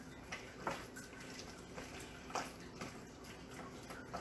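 Faint wet squishing of a hand mixing raw beef with egg and cornstarch in a glass bowl, in soft, irregular squelches.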